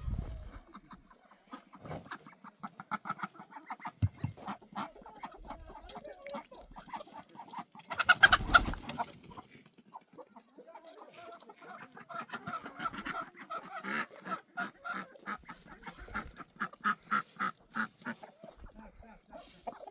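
Chickens clucking in rapid runs of short calls, with a louder, harsher outburst about eight seconds in.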